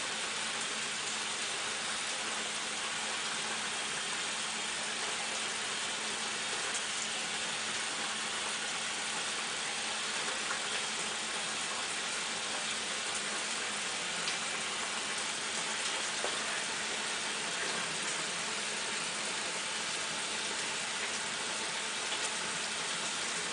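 Kitchen tap running steadily, water pouring over kidney beans in a strainer to rinse them.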